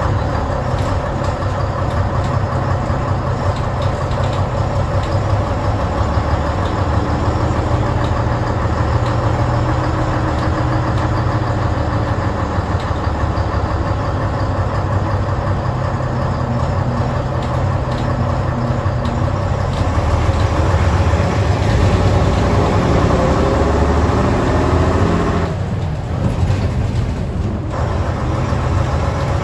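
Leyland Titan OPD2/1 bus's six-cylinder diesel engine running, heard from inside the saloon as the bus travels: a steady low rumble. About twenty seconds in the engine note rises for several seconds as the bus accelerates, then eases briefly near the end.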